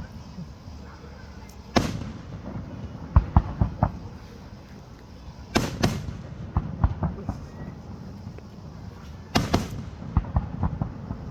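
Aerial fireworks going off: three loud booms about four seconds apart, each followed by a quick run of smaller sharp pops and crackles.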